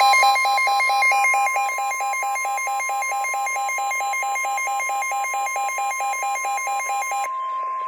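Emergency alert attention tone: a steady high electronic tone with a lower, buzzy tone beeping over it about five times a second. The beeping stops about seven seconds in, while the steady tone holds on.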